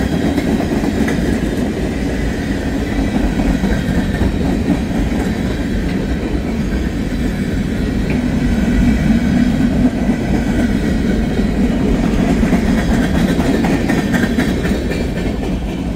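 Freight train rolling past at close range: a steady rumble of steel wheels on rail with clickety-clack from the cars, as a string of empty auto rack cars goes by.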